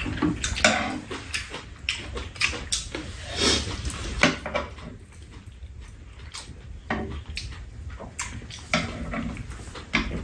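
Two people eating tofu stew with chopsticks and spoons: mouth sounds of chewing and slurping, with short, irregular clicks of the utensils against bowls and a metal tray.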